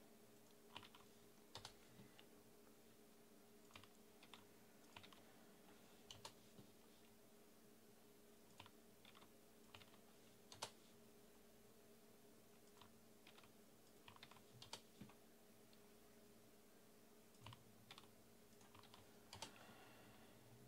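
Near silence: a faint steady hum with scattered light clicks and taps, coming singly or in small clusters every second or so.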